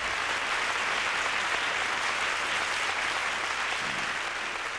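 Audience applauding, a steady sound of many hands clapping that starts to thin out near the end.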